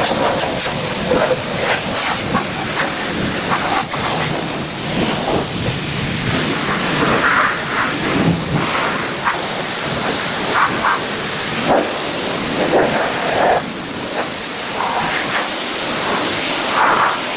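Pressure washer spraying water against a truck's body, a loud continuous hiss that swells and thins as the jet moves over the surface.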